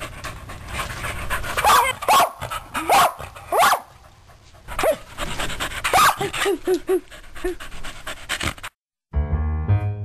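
Puppy whining and yipping: several high cries that bend up and down in pitch, then a quick run of about five short yips about six seconds in. The sound cuts out near the end and music begins.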